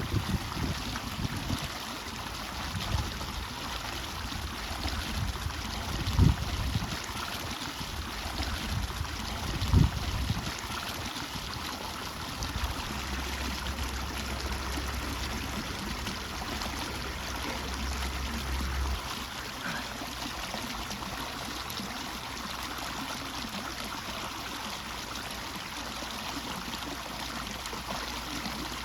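Steady running water trickling and splashing where an inflow drops into a pond. A few low bumps come in the first ten seconds, and a low hum joins partway through.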